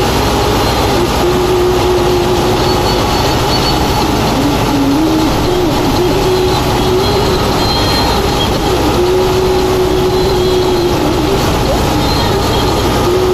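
Tractor-driven PTO thresher running steadily while canola stalks are fed into it by hand, together with the tractor engine driving it. The machine's hum dips in pitch briefly about four seconds in, then steadies again.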